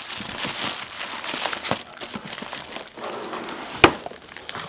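Rustling and crinkling handling noise, full of small irregular crackles, with one sharp click about four seconds in.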